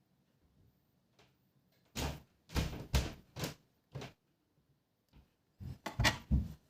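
A series of short knocks and thumps: about five in quick succession a couple of seconds in, then a tighter cluster near the end.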